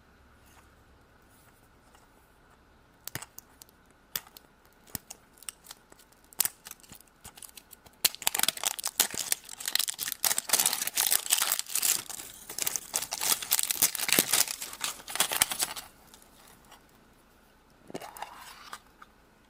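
The wrapper of a Peppa Pig surprise egg being torn open: after a quiet start, a few scattered clicks and rustles, then about eight seconds of dense tearing and crinkling that stops abruptly.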